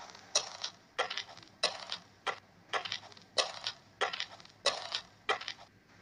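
Footsteps in an even walking rhythm: about nine sharp steps, one every two-thirds of a second or so.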